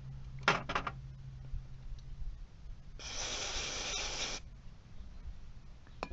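A few quick clicks of parts being handled, then an aerosol can of carburetor cleaner spraying in one steady hiss of about a second and a half that starts and stops sharply.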